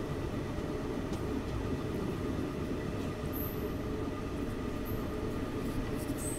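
Moving passenger train heard from its open coach doorway: a steady running noise of the coach on the track. A few brief, faint high squeaks come in partway through and near the end.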